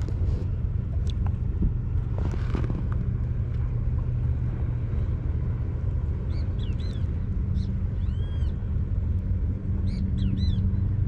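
Steady low outdoor rumble of wind and water, with a few short, high bird chirps in the second half.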